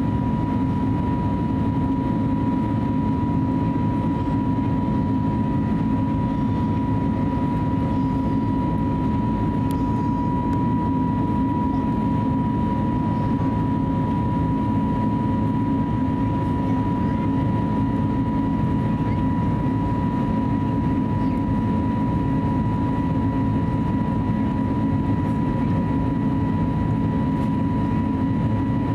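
Steady cabin noise inside an Airbus A320neo: a low rumble with a single steady high whine over it, unchanging in pitch and level.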